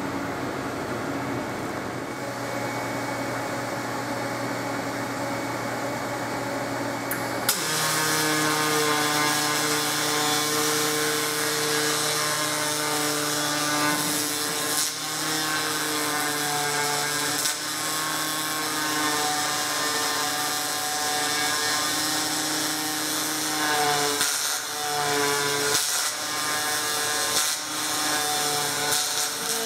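Pulsed MIG welding arc on aluminum from a Stel Max 403S welder: a steady, pitched buzz with a rough hiss over it, starting abruptly about seven seconds in and breaking off briefly a few times. Before it, a steady low hum.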